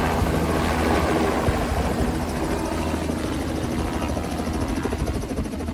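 Small two-bladed helicopter flying low and pulling away, its rotor blades chopping steadily over the engine's drone, getting a little fainter near the end.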